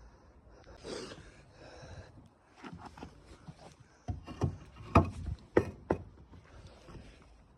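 Concrete floor blocks being set down between precast concrete beams: a scrape about a second in, then a cluster of sharp knocks of block on concrete, the loudest about five seconds in.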